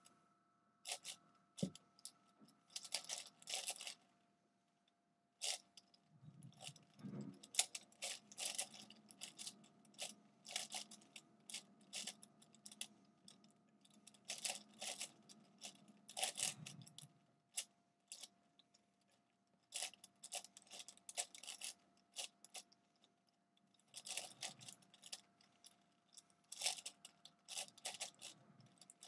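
Plastic clicking and clattering of a V-Cube 7 (7x7x7 puzzle cube) as its layers are turned quickly in a speedsolve, coming in bursts of rapid turns with short pauses between.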